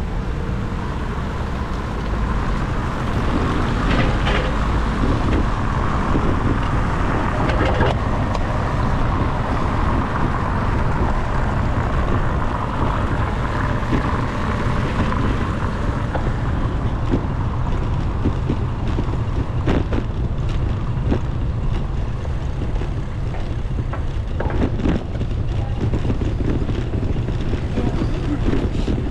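Wind rumbling on an action camera's microphone while cycling, over road and traffic noise, with a hiss that fades about halfway through. Scattered sharp clicks and knocks come in the second half.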